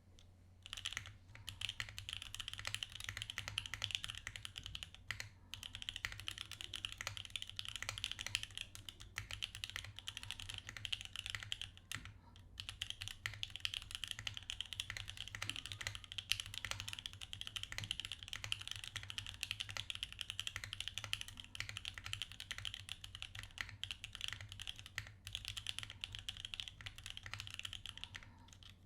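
Fast, continuous typing on a top-mount mechanical keyboard with a POM switch plate: dense key clicks and clacks, with brief pauses a few times. A faint steady low hum runs underneath.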